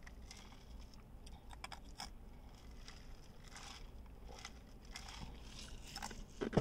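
Faint eating and drinking mouth sounds: sips from a plastic cup and chewing, with scattered small clicks and crackles. A louder short sound comes just before the end.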